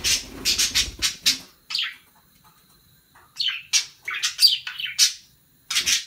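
Budgerigar chirping in quick, sharp, high calls: a run in the first second and a half, a single call, then a faster run about halfway through and one more burst near the end. A low rumble sits under the first run.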